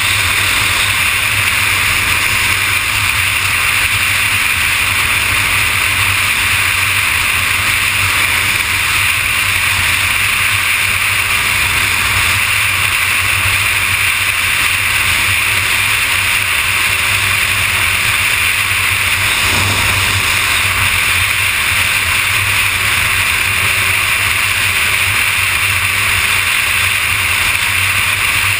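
Steady rush of wind and road noise at freeway speed on a Kawasaki ZX-6R sport bike, with the motorcycle's engine running as a low drone underneath.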